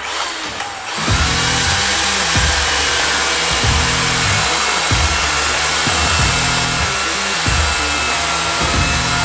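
Electric chainsaw speeding up about a second in, then running loud and steady as it cuts into a log, over background music.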